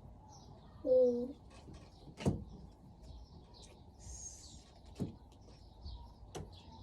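Small birds chirping steadily in the background, with three sharp knocks or taps on a table and a brief hummed voice about a second in.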